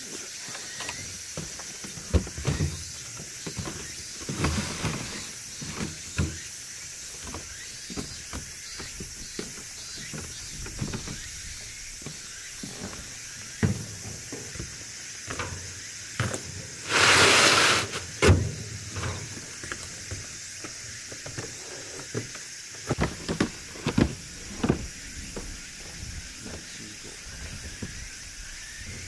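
Plastic harvest crates of pears being set down and shifted on a kei truck's bed: scattered knocks and thuds, with one louder rushing scrape lasting about a second a little past the middle. Insects drone steadily and high throughout.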